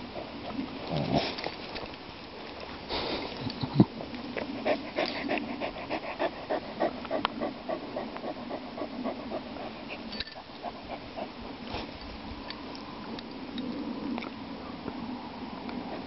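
Shaggy dog panting in quick, even breaths, about three a second, with a single sharp click a little under four seconds in.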